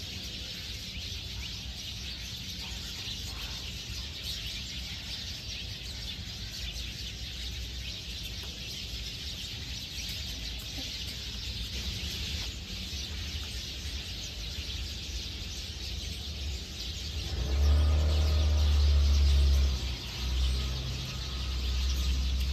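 Birds chirping steadily in the surrounding trees. A low rumble starts about three-quarters of the way in and runs nearly to the end, louder than the birdsong.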